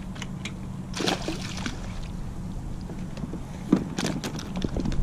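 Water splashing and dripping as a small sheepshead is swung up out of the water on the line, with a cluster of splashes about a second in and a single sharp knock about three-quarters of the way through, over a low steady rumble of wind and water.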